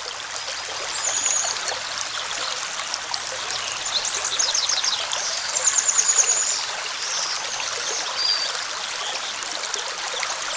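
Stream water running steadily, with short high chirping trills over it several times.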